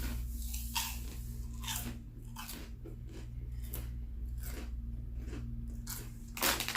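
Crunchy chewing of fried pork skins (pork rinds), with a crisp crunch about once a second. A louder rustling comes in near the end.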